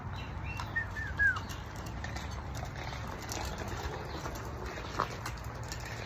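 Yellow lacewing Indian ringneck parakeet giving three short chirps in quick succession about a second in, with some wing flapping, over a steady low hum. A single click comes near the end.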